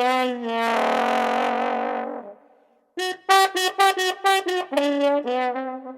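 Music: a long wavering held note, then after a brief break a run of short, quick notes.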